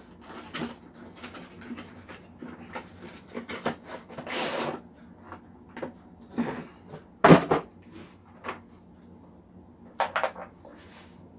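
A cardboard box and a hard plastic tool case being handled: scattered rustling and scraping as the case is slid out of the box, with a single loud knock about seven seconds in as the case is set down on the table, then a few sharp clicks near the end.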